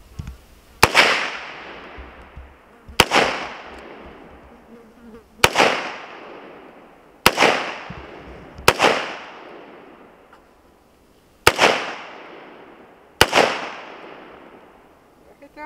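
Anderson AR-15 semi-automatic rifle in .223/5.56 firing seven single shots at an uneven pace, each crack followed by a trailing echo of about a second.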